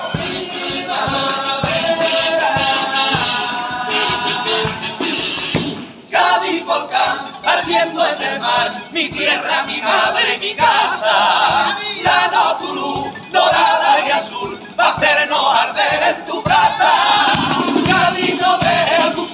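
A carnival group's kazoos (pitos) playing a melody in unison, then, about six seconds in, the group singing in chorus with Spanish guitars strumming.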